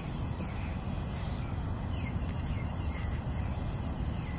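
Birds calling several times, short falling calls, over a steady low rumble of wind on the microphone.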